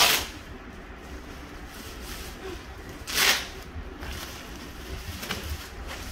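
Woven plastic sack rustling and crinkling as a punching bag is pulled out of it, with a louder swish at the start and another about three seconds in.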